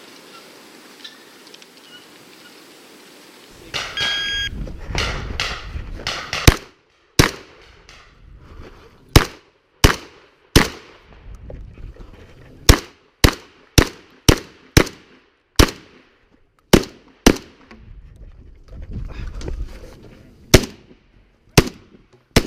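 Gunfire: about twenty sharp shots. They come irregularly, some in quick runs about half a second apart, others a second or more apart, and start a few seconds in.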